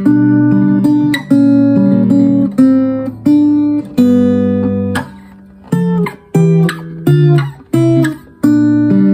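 Freshly strung Veelah acoustic guitar playing chords. For about five seconds the chords are struck roughly once a second and left to ring. Then come shorter chords that are stopped quickly, with brief gaps between them.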